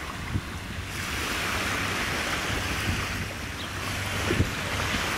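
Small waves washing onto a sandy shore with wind rumbling on the microphone, and a couple of brief knocks.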